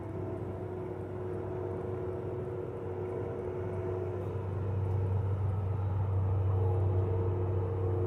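Crane truck's engine running steadily with a low drone that swells over the second half, a few held tones riding above it.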